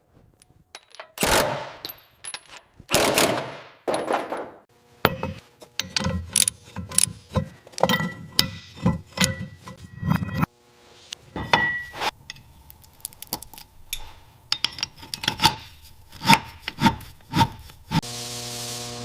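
Several long rubbing, scraping strokes of hand work, followed by a dense run of short clicks and light knocks. Music comes in near the end.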